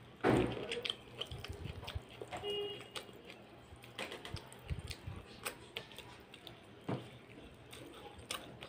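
Fingers mixing rice and breaking a piece of fried katla fish on a metal plate: soft wet squishes with scattered small clicks, the loudest just after the start.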